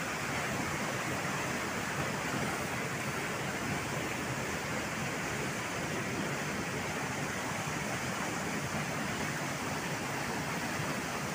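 Steady rush of a waterfall and fast-flowing river water, an even, unchanging noise.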